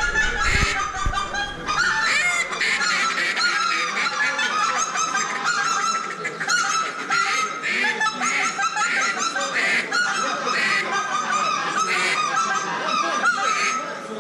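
Goose honking: many overlapping short honks and clucks, rising and falling, in a continuous flock-like chorus.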